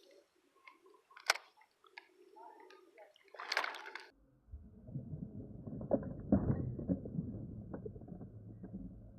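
Water splashing and sloshing around a kayak, with small knocks and clicks from gear being handled; a louder splash comes about three and a half seconds in. After that the sound suddenly turns muffled and low, a rumbling rubbing against the chest-mounted microphone with scattered knocks.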